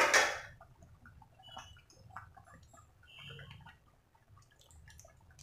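A pan of sambar boiling, with faint scattered bubbling pops, after one short loud sharp sound right at the start.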